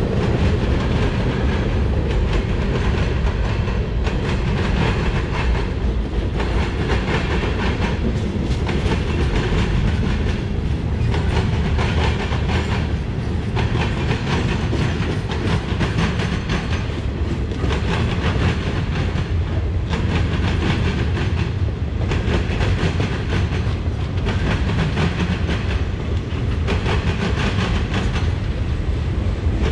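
Freight train cars rolling past: a steady rumble of steel wheels on rail, with a clatter that swells and eases about every two seconds as the wheel sets go by.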